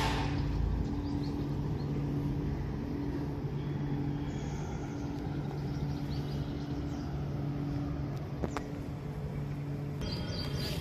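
A steady low machine hum, with a single sharp click about eight and a half seconds in.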